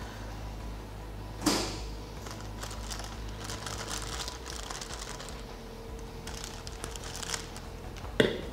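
Kitchen handling noise: a plastic piping bag crinkling and a spatula working in a metal saucepan, with faint scattered rustles and clicks. There are two sharp knocks, about a second and a half in and near the end, over a faint steady hum.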